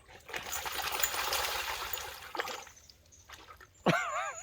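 Water splashing for about two seconds as a Rottweiler wades through a shallow creek. Near the end comes a short, loud, warbling bird call.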